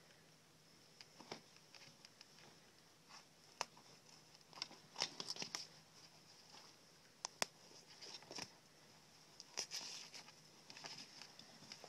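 Faint handling sounds of a pheasant carcass being cut up and pulled apart by hand: scattered sharp clicks and short bursts of crackling and tearing, busiest about five seconds in and again near ten seconds.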